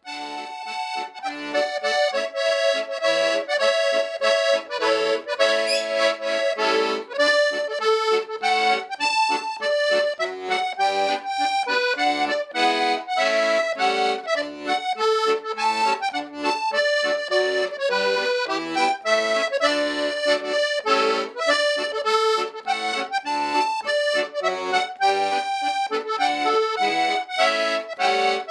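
Accordion music in a traditional style, quick notes and chords played at a steady lively rhythm.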